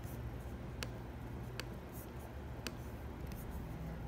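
A few sharp single clicks, spaced unevenly about a second apart, from a computer mouse being clicked, over a faint steady low hum.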